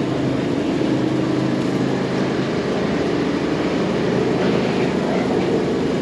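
Steady low rumble of supermarket background noise with a faint hum.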